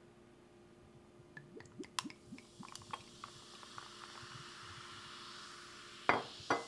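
Liquor poured from a bottle into a rocks glass over ice: scattered clicks and cracks of the ice, then the steady splash of the pour. Two knocks near the end.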